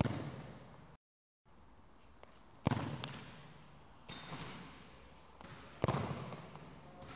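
A football kicked hard three times, each sharp thump followed by a ringing echo in a large sports hall, with a softer knock about four seconds in.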